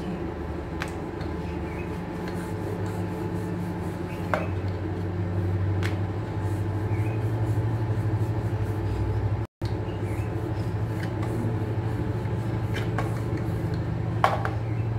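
Wooden rolling pin rolling a thin sheet of dough back and forth on a wooden chopping board, a steady low rumble with a few light knocks as the pin and dough are handled.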